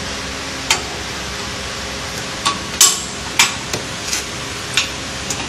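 Sharp clicks and knocks, about eight spread over a few seconds, from the orange adjustable clamping handles on the bubble remover's pressure-chamber door being worked and tightened against the door, over a steady background hiss.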